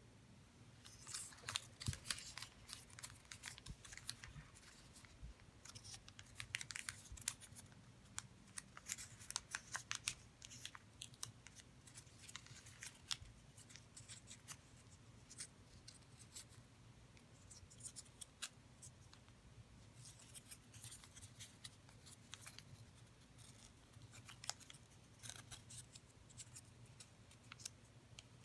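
Origami paper being folded and creased by hand: faint, irregular crisp crackles and rustles of the stiff paper, coming in clusters as the folds are pinched and pressed.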